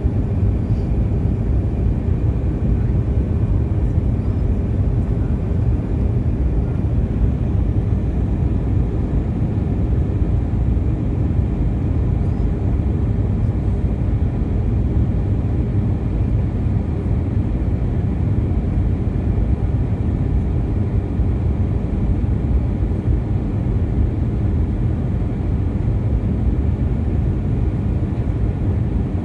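Steady low rumble of an Airbus A320's jet engines and rushing airflow, heard inside the passenger cabin during the approach to landing.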